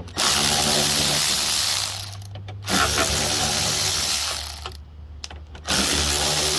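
Cordless power driver with a T30 Torx bit backing out screws, its motor running in steady spells of about two seconds: twice, then a third spell starting near the end.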